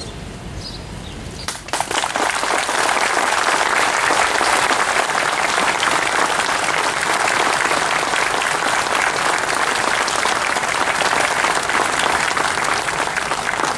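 Crowd applauding; the clapping starts about a second and a half in and then holds steady.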